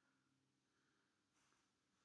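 Near silence, with a faint scratch of a ballpoint pen on paper as a letter is written, about one and a half seconds in.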